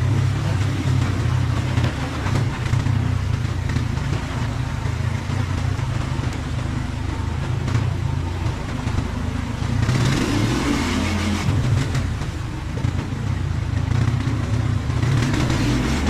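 ATV engine running steadily while riding, with bursts of hissing noise about ten seconds in and again near the end.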